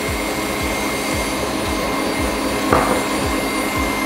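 Stand mixer running at high speed, its wire whisk beating egg whites and sugar into meringue: a steady whir with a regular low pulse about three times a second and a faint whine. A short knock comes about two-thirds through.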